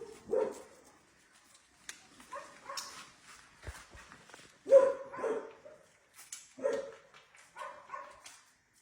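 Dogs barking: a run of short barks in irregular clusters, the loudest about five seconds in.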